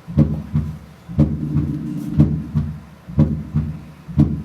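Recorded heart sounds in a gallop rhythm: about one cycle a second, each a cluster of three low thuds ('purum-pa'). This is an S4 gallop, the extra atrial sound just before the first heart sound, which is the sign of a stiff ventricle.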